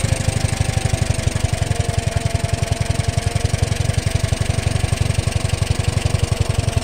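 Forklift engine running at idle with a rapid, even beat, and a faint whine over it that dips slightly in pitch about a second and a half in.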